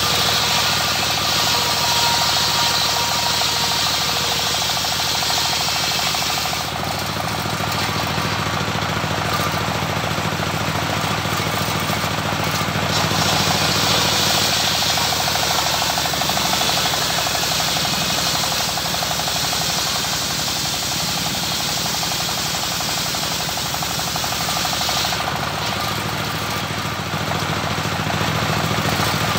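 Homemade circular-saw sawmill driven by a stationary single-cylinder diesel engine running steadily under load, its blade ripping a waru log lengthwise into rafters. The high rasp of the cut rises and falls as the log is fed through, easing off twice.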